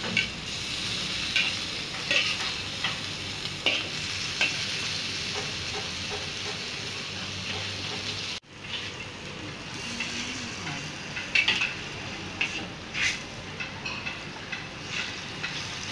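Tofu and vegetables sizzling in a hot wok as a metal spatula stirs and scrapes them, with scattered sharp scrapes and clinks of the spatula against the wok; the splash of added water is boiling off. The sound drops out for an instant about halfway through.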